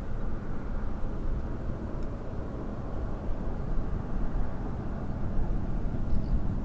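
Steady low rumble of a Boeing 737-800's CFM56-7B jet engines as the airliner climbs away after takeoff.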